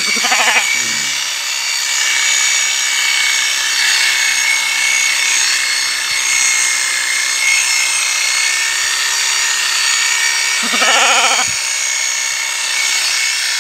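Handheld electric sheep-shearing machine (ST777 model) running steadily at speed with a high whine as it cuts through fleece. Two short calls rise above it, one at the start and one near the end.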